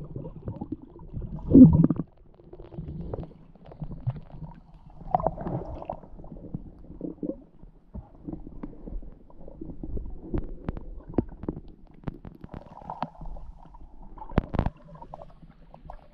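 Muffled underwater gurgling and bubbling heard through a submerged camera, with scattered small clicks and knocks. A louder gurgle comes about a second and a half in, and a sharp knock near the end.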